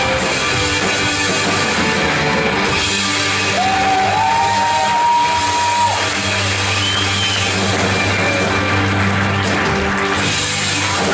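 Live worship band playing the close of a rock-style song, with electric guitar and drum kit. About four seconds in, a high held note bends up and is sustained for a couple of seconds.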